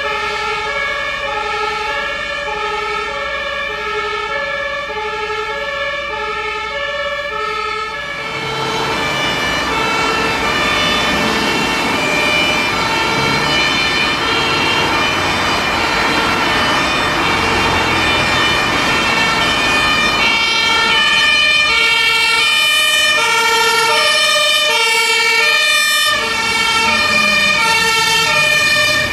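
Fire engine two-tone siren (German Martinshorn) sounding, stepping back and forth between two pitches about every half second. From about eight seconds in, the rumble of the truck's engine and tyres joins it as the vehicles pass close.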